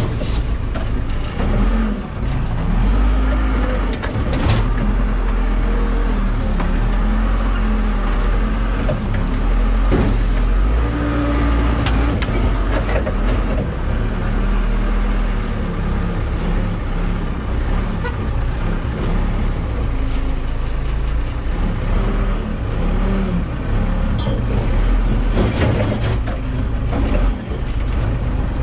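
Backhoe diesel engine running hard during demolition, its pitch rising and falling as it works, with a few sharp clanks.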